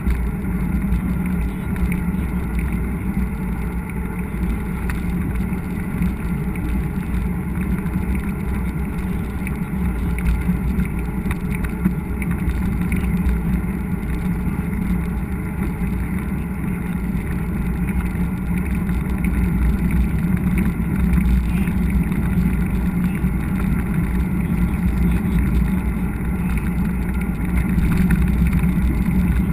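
Steady rumbling noise of wind and riding on an action camera's microphone during a mountain-bike ride, with no distinct events.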